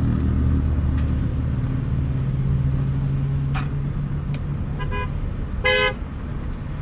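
Steady low hum of a vehicle engine running amid freeway traffic, then a short vehicle horn toot about five seconds in and a louder, longer honk just before six seconds.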